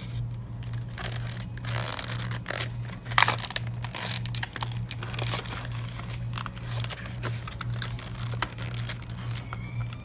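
Product packaging being torn open by hand, with irregular crinkling and ripping and one louder rip about three seconds in. A steady low hum runs underneath.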